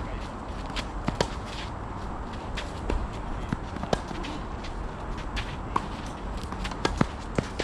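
Tennis rally: sharp knocks of racket strikes and ball bounces, with scuffing footsteps on the clay court, over a steady low background hum. The loudest knock is a racket strike about four seconds in.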